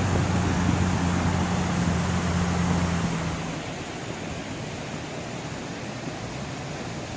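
Steady rushing noise of flowing water with a low hum under it. The hum stops about three seconds in, and the rushing carries on more quietly.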